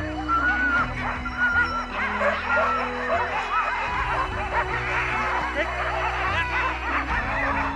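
A team of harnessed sled dogs barking and yelping all together in a dense, continuous clamour, the din of dogs being hitched up to set off. Music with sustained low chords plays underneath.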